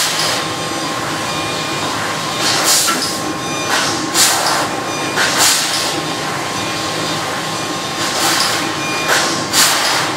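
Eagle eSmart 6 kW fibre laser cutting machine cutting sheet metal: a steady machine hum with a faint steady tone, broken several times by short rushing hisses as the head cuts, with a pause in the middle.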